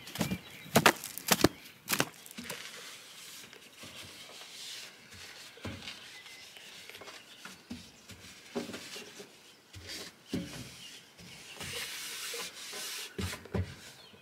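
An outdoor rug shaken out, snapping sharply about four times in the first two seconds. Then a tissue rubbing over a stainless-steel gas hob and sink, in soft intermittent strokes.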